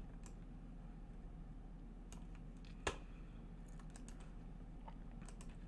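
A few scattered computer keyboard clicks over a faint steady low electrical hum, the sharpest click about three seconds in.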